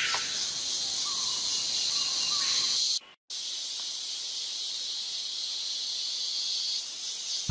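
Steady high-pitched drone of a rainforest insect chorus, broken by a brief total dropout about three seconds in.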